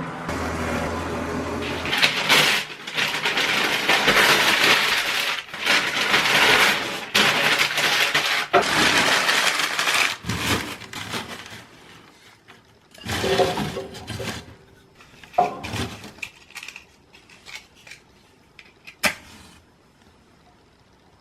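Dishes and cutlery being handled: a long stretch of dense rustling and clatter, then scattered clinks and knocks that thin out, the last a single sharp clack.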